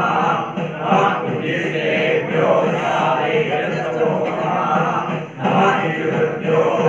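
Group of Hindu priests chanting Vedic mantras together in unison, with a brief break in the chant about five seconds in.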